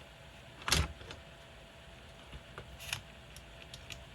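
Small parts being handled on a workbench: a short rattle a little under a second in, then several light clicks of small screws and plastic pieces. A space heater hums faintly and steadily underneath.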